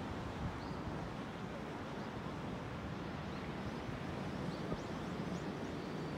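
Steady wind rumbling on the microphone over the wash of small waves breaking on a sandy beach, with a few faint short high chirps now and then.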